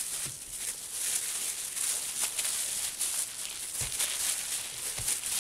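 Wet wool felt being rubbed by hand and rolled with a ribbed rolling pin over bubble wrap while fulling a slipper blank: steady plastic rustling and swishing, with two soft knocks in the last second and a half.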